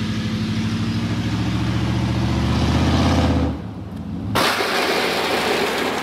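OBS Chevy pickup truck engine revving, its pitch rising steadily for about three and a half seconds before it drops off. About four seconds in, a loud harsh rush of noise sets in and carries on to the end.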